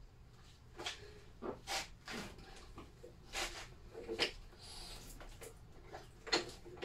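Irregular clicks, clunks and rustles from hand-work on a Lister D stationary engine while it is being checked for a spark, with no engine running.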